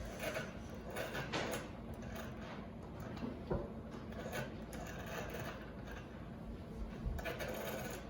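Rotary telephone being worked by hand: the dial is turned and pushed, with several short mechanical clicks and scrapes from the dial and handset.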